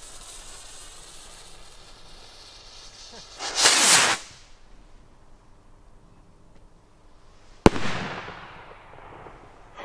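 Funke 'Brokat bunt' firework rocket: the fuse fizzes quietly, then the rocket lifts off with a loud whoosh about three and a half seconds in. About four seconds later comes the single sharp bang of its brocade star burst, echoing away.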